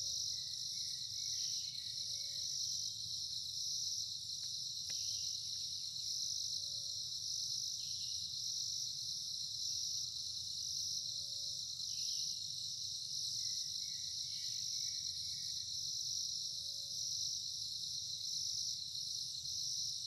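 Night chorus of rainforest crickets and other insects: a steady high-pitched trill, with a few faint short calls and a low rumble underneath.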